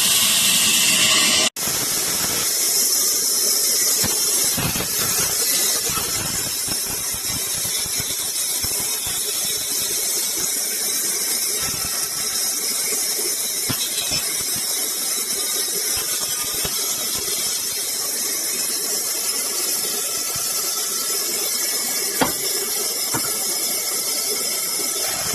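Sawmill saw cutting through wood with a steady, hissing whine, with one sharp tick near the end.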